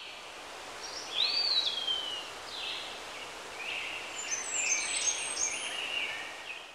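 Birds calling and chirping over a steady hiss of outdoor ambience. About a second in, one call rises and then slides down, and a run of short high chirps follows in the second half.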